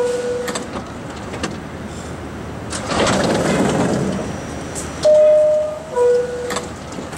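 New York City Subway R160B door chime: a two-note falling 'ding-dong' of steady tones, its lower note sounding at the start and the full chime repeating about five seconds in, warning that the doors are closing. Between the chimes a rush of noise swells and fades around the middle.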